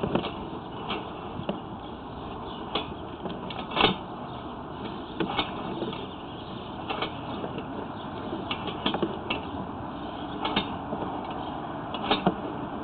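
Sewer camera push cable being fed through cast iron pipe: irregular clicks and knocks over a steady hiss.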